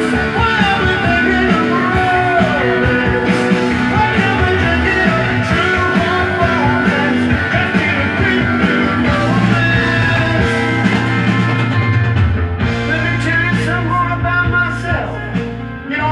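Rock music playing back from a vinyl record on a Dual 1257 belt-drive turntable, loud and continuous.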